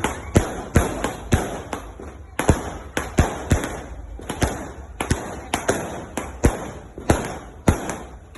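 Fireworks going off in quick, irregular succession: sharp bangs about three a second, each trailing off in an echo.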